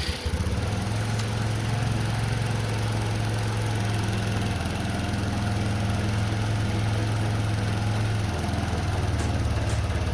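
SYM RV scooter engine idling steadily. Near the end, faint ticks come in about twice a second: the tappet clicking that the owner takes as a warning sign that the exhaust valve clearance has closed up.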